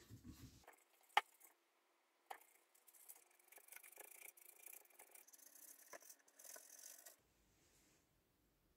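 Faint hand-handling sounds at a workbench: a sharp click about a second in, then several seconds of light scratching and rustling with small clicks, which cut off suddenly near the end.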